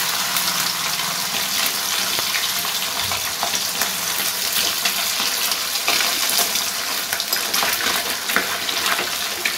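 Khoira fish frying in hot oil in a karahi: a steady sizzle with scattered crackles, while a metal spatula turns the fish.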